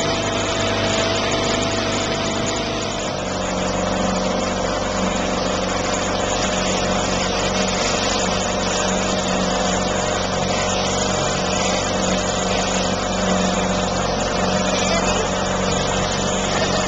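A small motorboat's engine running steadily under way, its even hum mixed with a steady rush of water and wind noise.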